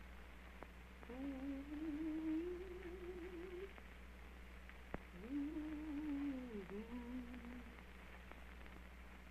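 A woman humming a slow tune with a wavering pitch, in two phrases: the first rises gently, the second arches up and then falls. Under it runs the steady low hum and hiss of an early optical film soundtrack, with a single click about five seconds in.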